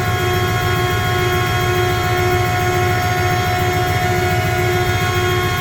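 Steady drone of running chiller-plant machinery: a low rumble under several constant hum tones, with no change in pitch or level.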